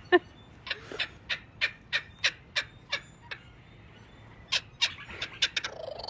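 Laughing kookaburra calling: a run of short, sharp notes about three a second, breaking off for about a second past the middle and coming back quicker near the end. The call is the bird announcing its territory on arriving somewhere new.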